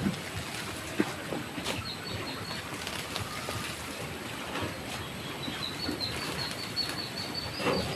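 A bird giving a rapid series of short, high chirps, about four or five a second, starting about five seconds in, over scattered knocks and rustling.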